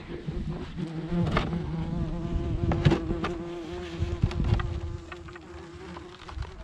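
Yellow jackets buzzing in a steady hum around an open beehive, fading near the end, with a few knocks from the wooden hive box being lifted and handled. The wasps are robbing honey from a hive whose honeybee colony has died.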